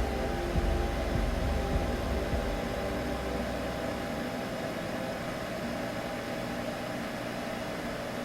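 Steady droning hum over an even hiss, a soothing sleep sound for babies; a low rumble under it fades away about three to four seconds in.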